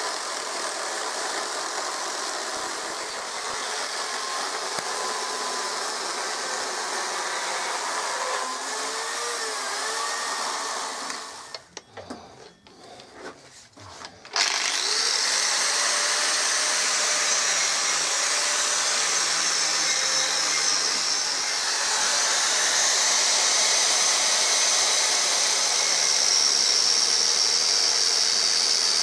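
A chainsaw cutting into a wooden block, steady machine noise. After a short quieter gap about halfway through, an angle grinder starts abruptly and runs with a steady high whine, sanding the wood with a flap disc.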